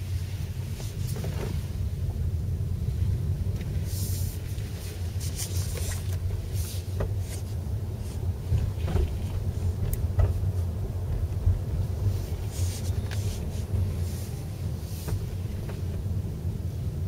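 Steady low rumble of tyre and road noise heard inside the cabin of a Chevrolet Volt rolling slowly, with a few brief hisses.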